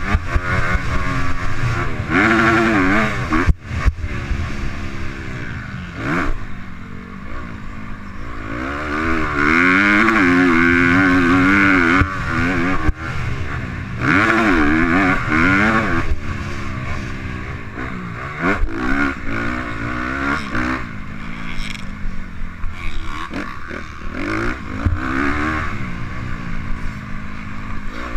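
Youth motocross dirt bike engine heard from on board the bike, its pitch rising and falling again and again as the throttle is worked around the track, with a few sharp knocks from the bike hitting bumps.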